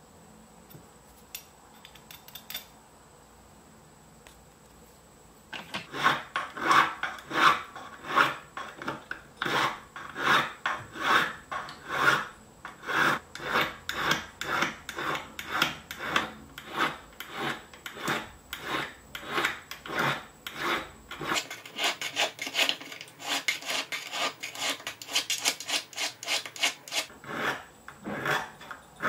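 A small hand file rasping back and forth on the edge of a silver spoon, about two strokes a second, starting about five seconds in. Near the end the strokes come quicker and sound higher.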